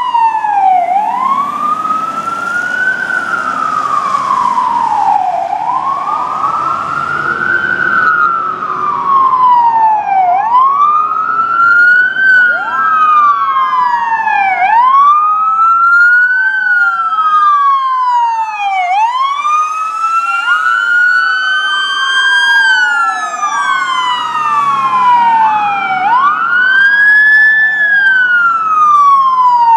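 Fire truck sirens on the wail setting, slowly rising and falling about every five seconds. From about twelve seconds in, two or more sirens overlap out of step as several trucks respond together, with the rumble of the trucks' engines underneath at times.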